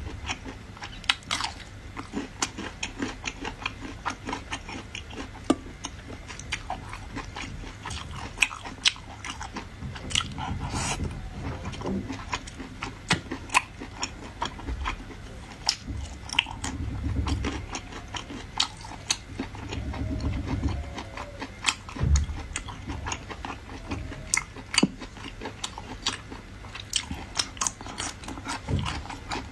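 Close-miked eating sounds: sea snails sucked from their shells and chewed, with many sharp, irregular wet clicks and smacks.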